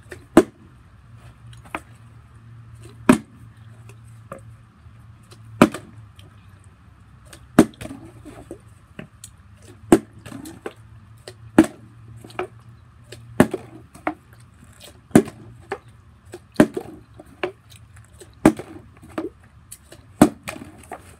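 Plastic water bottle repeatedly tossed in bottle-flip attempts and knocking onto a concrete surface, with sharp, short knocks about every second as it lands and falls over, failing to land upright on its cap.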